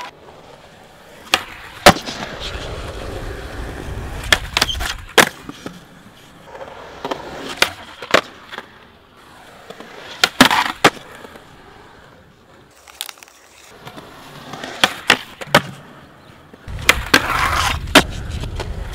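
Skateboard on a concrete skatepark: wheels rolling with a low rumble, broken by a series of sharp wooden cracks as the tail pops and the board lands again after tricks.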